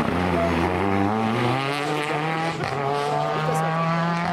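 Rally car engine accelerating hard, its pitch rising over the first second and a half and then holding steady at high revs.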